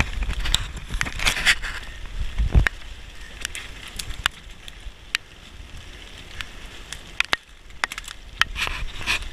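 Footsteps crunching and rustling through leaf litter and brush, with scattered sharp ticks. A low rumble sits under the first two and a half seconds and ends in a heavy thump.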